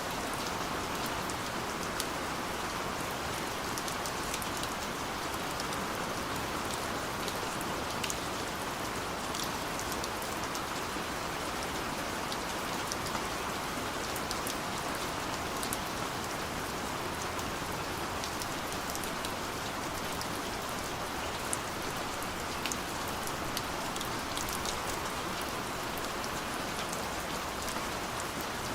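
Steady rain falling on a surface, an even hiss with scattered small drop ticks.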